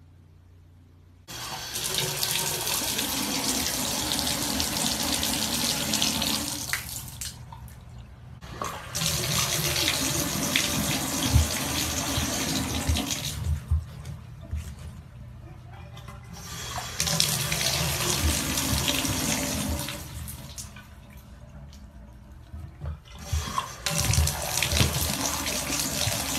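Water running from a tap into a bathtub in four spells of a few seconds each, stopping and starting, with a few low thumps mixed in.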